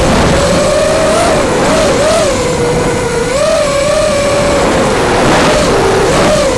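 Racing quadcopter's brushless motors and propellers whining, the pitch swooping up and down with throttle changes and dipping lower for a moment near the end, over a steady rush of noise.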